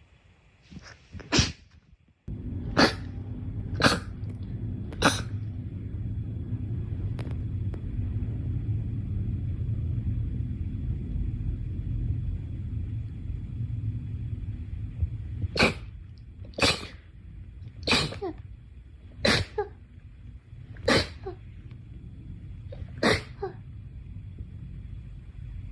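A series of about ten short, sharp sneezes: four within the first five seconds, then six more a second or two apart in the second half. A steady low rumble runs under them from about two seconds in.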